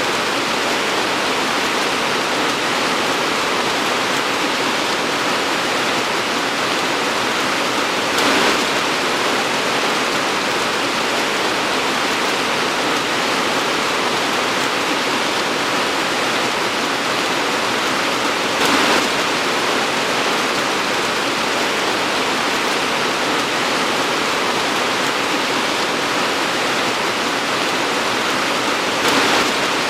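Torrential rain pouring steadily, a dense even hiss, with a brief louder swell three times, about ten seconds apart.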